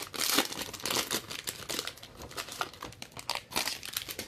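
Plastic wrapper of a trading card pack being crinkled and torn open by hand: a dense run of sharp crackles that stops near the end.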